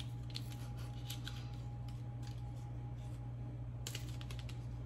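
Faint rustling and small clicks of a mascara's paper packaging being handled while its pull tab is worked, with one sharper click near the end. A steady low hum runs underneath.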